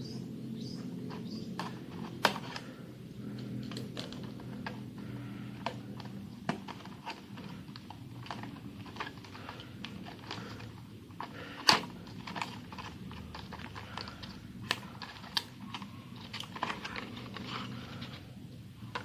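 Irregular clicks and taps of an SSD's retail box and plastic packaging being opened and handled by hand, with a sharp snap about twelve seconds in, over a low steady hum.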